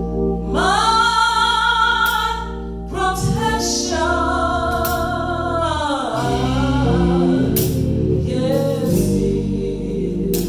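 Gospel song: a solo voice singing long, wavering notes over organ accompaniment.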